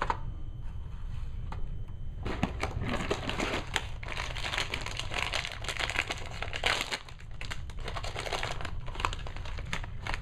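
Clear plastic HeroClix figure packs being handled, crinkling and clicking. It starts about two seconds in, is busiest in the middle, and thins to scattered ticks near the end.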